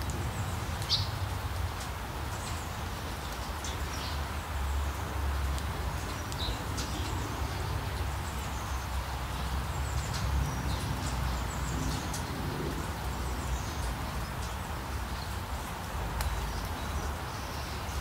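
Birds chirping in short, high calls every few seconds over a steady hiss of rain, with a low rumble underneath.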